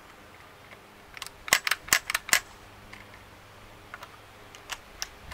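Scoped pellet gun: a quick run of about six sharp clicks and cracks in under a second, starting about a second and a half in, then a few fainter clicks near the end.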